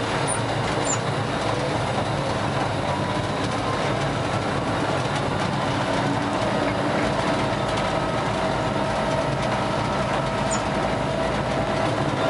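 Steady cab noise of a TCDD DE 33000-class diesel-electric locomotive under way: engine running and wheels rolling on the rails.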